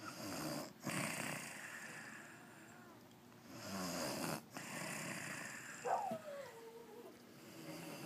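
A woman snoring in her sleep: two long snoring breaths, one at the start and one about three and a half seconds in. About six seconds in comes a short note that slides down in pitch.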